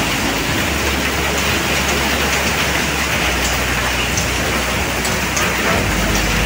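Heavy rain mixed with small hailstones pelting down on paving and road: a steady, dense hiss with scattered faint ticks.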